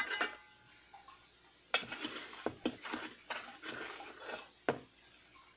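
A utensil clinks once with a short ring, then a run of scraping, scooping strokes and light knocks: brown sugar being scooped and packed into a measuring cup.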